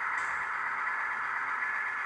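H0-scale model diesel locomotive running slowly along the track: a steady whir from its small electric motor and gears, with a faint high whine.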